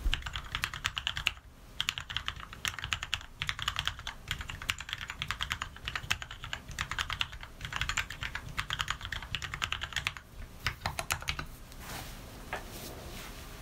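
Typing on an Anne Pro 60% mechanical keyboard with lubed Cherry MX Red switches and 62g springs: quick runs of keystrokes in bursts with short pauses, thinning to a few single keystrokes near the end.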